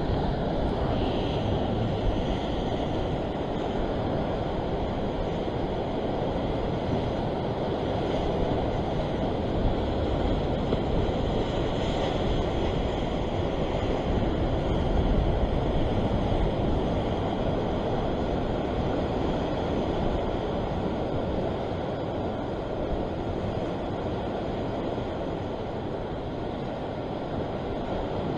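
Ocean swell washing over the rocks below, a steady rushing with no breaks, mixed with wind rumbling on the microphone.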